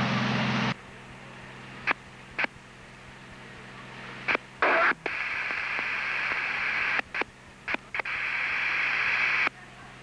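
Fire-department radio traffic on a scanner with no voice: a loud burst of hiss and hum cuts off about a second in. Then come scattered clicks and short squelch bursts as transmitters key up and drop, with two longer stretches of open-channel hiss around the middle and near the end.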